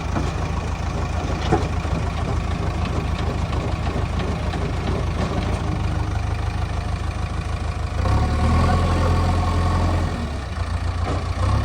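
Diesel engine of a JCB 3DX backhoe loader running steadily with a low hum. The hum grows louder about eight seconds in, dips briefly and comes back near the end.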